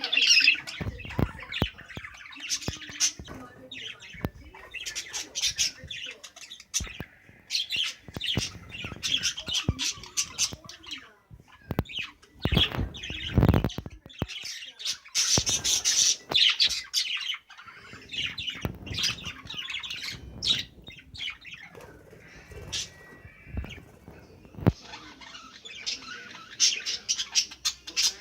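A flock of budgerigars chattering and squawking, with busy clusters of high calls that come and go. Occasional knocks and wing flutters sound among the calls, the loudest about halfway through.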